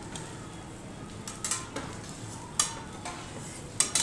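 Metal spatulas clacking and scraping on a steel hibachi griddle, several sharp clacks, the loudest a little past halfway, over a low steady sizzle of food cooking.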